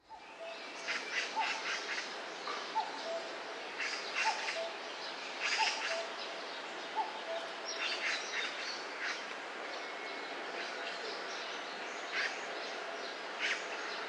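Woodland birdsong: several birds chirping over a steady hiss, with a lower call repeating every second or so through the first half.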